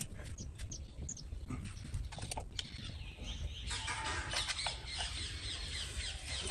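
Faint scattered clicks and rustles of a loose car speaker and wires being handled, over a low steady rumble; about four seconds in, a busier high-pitched chatter joins.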